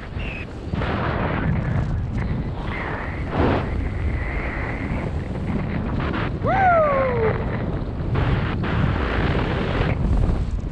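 Wind rushing over a skydiver's helmet-camera microphone during the descent under an open parachute canopy. About two-thirds of the way through, a short whistle-like tone falls in pitch.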